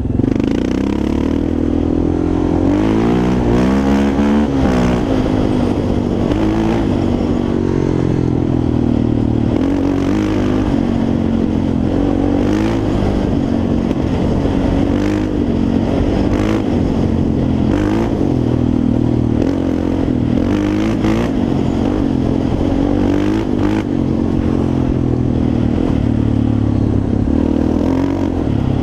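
Yamaha Raptor 350 quad's single-cylinder four-stroke engine revving up and down under riding, with frequent short knocks and clatter.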